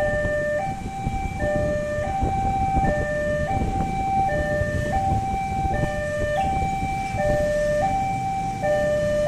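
Railway level-crossing warning alarm sounding as the barrier arms come down. It is an electronic two-tone signal alternating between a higher and a lower note, each held about three quarters of a second. Road traffic runs underneath.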